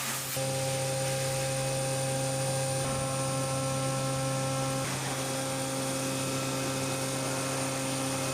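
CNC machining centre running during high-speed milling: a steady machine hum with several fixed whining tones. Extra higher tones join for about two seconds around the middle, then drop away. There is a brief hiss at the very start.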